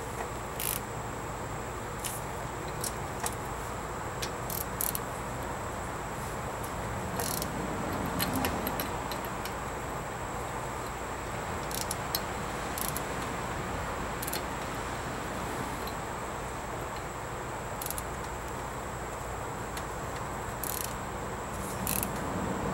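Wrench and ratchet on a car's rear brake caliper bolts: scattered sharp metallic clicks and clinks, a little busier about eight seconds in, over a steady background hum.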